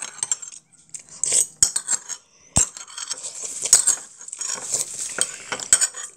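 Metal spoon clinking and scraping against a ceramic bowl as seaweed soup and rice are scooped up: scattered sharp clinks, with a denser stretch of scraping in the second half.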